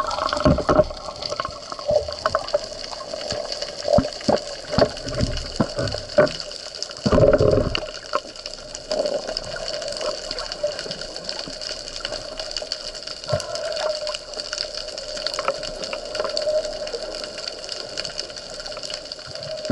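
Water sounds picked up by a camera in the sea: a steady wash with scattered knocks and clicks, and a louder rush of water about seven seconds in.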